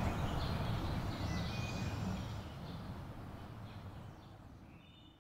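Outdoor ambience: a steady low rumble of background noise with birds chirping, fading away over the last few seconds.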